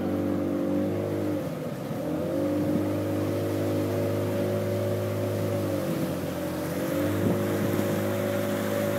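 The motorized canoe's engine running steadily, easing off about a second and a half in and again around six seconds in, then picking up speed each time.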